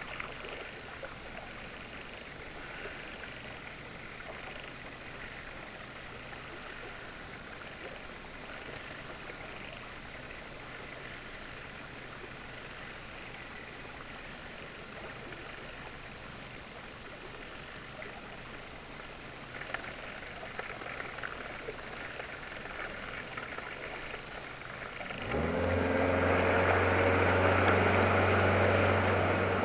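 Boat outboard motor ticking over quietly under steady water noise, with light handling rattles about 20 seconds in. About 25 seconds in the engine is throttled up sharply to a loud, steady run as the inflatable boat gets under way.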